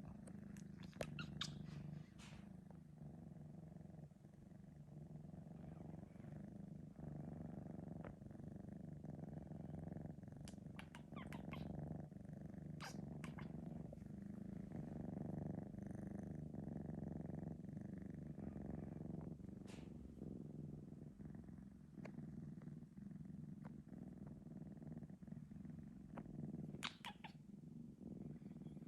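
Three-month-old Sphynx kitten purring steadily, with a few faint clicks now and then.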